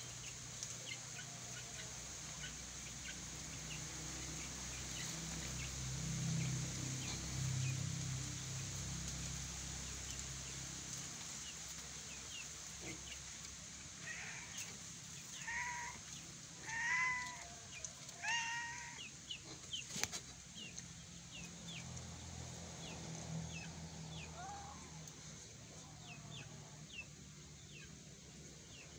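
A chicken clucking, a run of calls about halfway through, over faint high chirps, with a single sharp click just after the calls.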